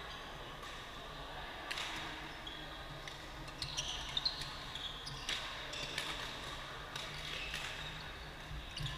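Badminton rackets striking the shuttlecock, sharp cracks every second or two across a large hall, with sports shoes squeaking on the court floor about four seconds in.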